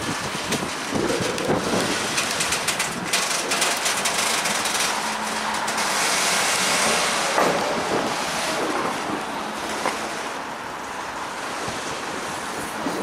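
Freight train of loaded wagons rolling past close by: a steady rush of wheel and rail noise, with sharp clicks of wheels over the track in the first few seconds, and wind on the microphone.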